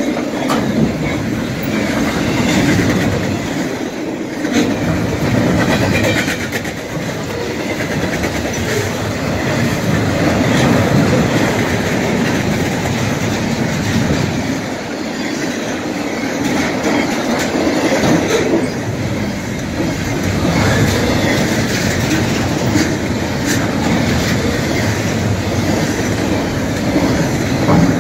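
Norfolk Southern double-stack intermodal freight train rolling past: a steady rumble and rattle of steel wheels on the rail, with clickety-clack and scattered clanks from the container cars.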